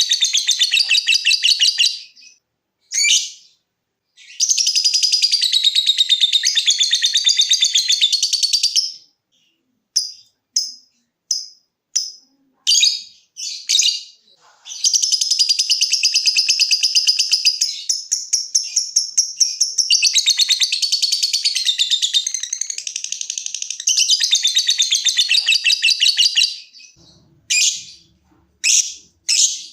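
Lovebird ngekek: long runs of very fast, high, chattering trill, several bouts of two to seven seconds each, with short separate sharp chirps between the bouts, the longest gap falling between about ten and fourteen seconds in.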